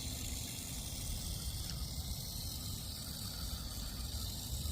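Steady hiss of running water, with a low rumble underneath.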